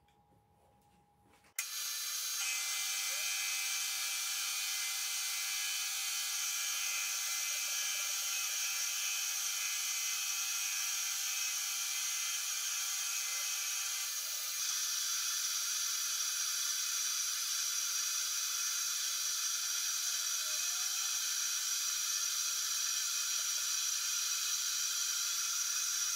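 Metal lathe running and cutting a polished metal bar: a steady high whir and hiss of the spinning chuck and the tool on the metal. It starts suddenly about a second and a half in and changes slightly about halfway through.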